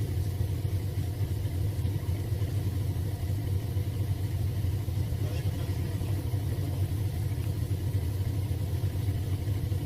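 Heavy machinery engine running steadily with a low, even drone.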